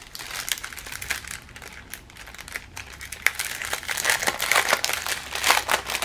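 Small plastic packets of diamond-painting drills crinkling as they are handled. The crinkling is sparse at first and gets busier and louder about halfway through.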